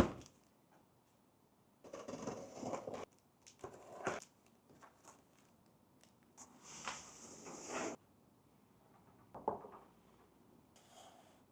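Packaging being handled during an unboxing: two stretches of rustling and sliding, and a few sharp knocks and clicks in between.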